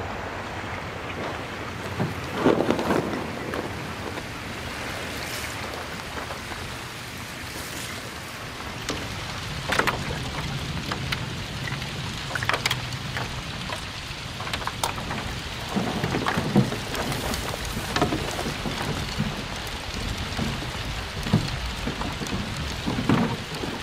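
Broken lake ice clinking and crackling as pieces knock together and against a canoe, irregular sharp clicks and knocks over a steady wash of water.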